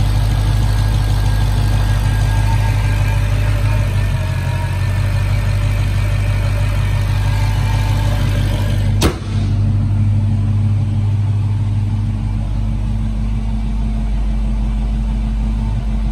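Supercharged 6.2-litre HEMI V8 of a Dodge Charger SRT Hellcat idling steadily. About nine seconds in the hood is shut with a single sharp thud, and the idle sounds duller afterwards.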